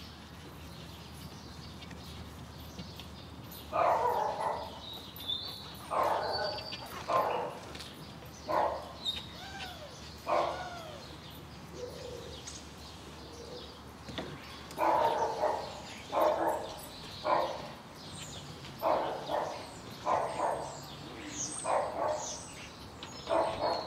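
A dog barking over and over, about a dozen short barks in loose runs roughly a second apart, starting about four seconds in.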